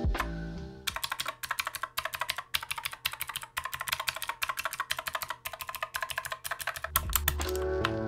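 Fast typing on an IQUNIX M80 Purry Cat wireless mechanical keyboard, a quick run of key clacks several to a second. Background music plays for about the first second, drops out, and returns about seven seconds in.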